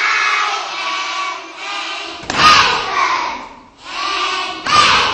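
A class of young children chanting a rhythmic jazz chant together in unison, with two loud thumps about two and a half seconds apart.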